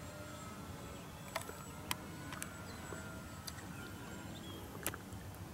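Faint, distant whine of a FlightLine P-38L Lightning model's twin electric motors as it flies high overhead, over a low rumble. A few sharp clicks break in.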